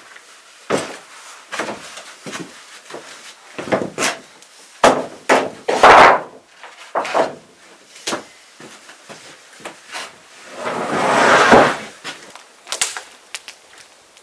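Long wooden planks being handled and set down on a floor, knocking and clattering against each other in a string of separate hits, with a longer sliding scrape about eleven seconds in.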